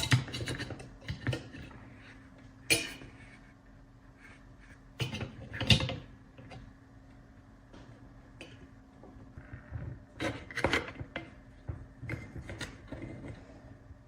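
Small hard parts and tools being handled on a workbench: scattered clicks, taps and clatters, a few louder knocks, over a faint steady hum.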